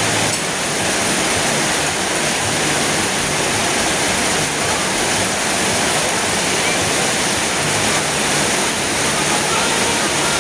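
Heavy rain pouring down in a storm, a steady loud rush of noise.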